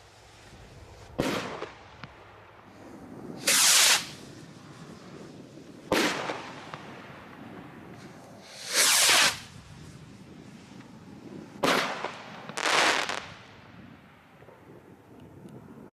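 Flying Pig firework rockets let off one after another: short rushing whooshes alternating with sharp bangs, three of each, each bang a couple of seconds after a whoosh, with a last whoosh near the end.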